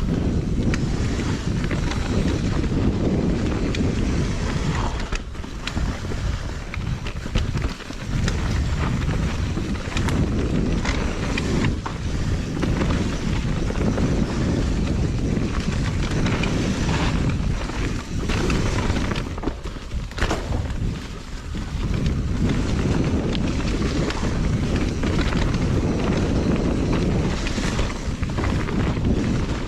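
Mountain bike descending a dirt trail at speed: wind buffets the camera microphone over the rumble of knobby tyres, with frequent sharp clacks and rattles from the bike. The noise drops briefly a few times, near a fifth of the way in and again about two-thirds in.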